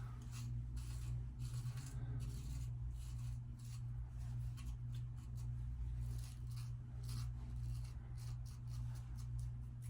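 Faint, irregular rubbing and scraping strokes against a freshly shaved face, over a steady low hum.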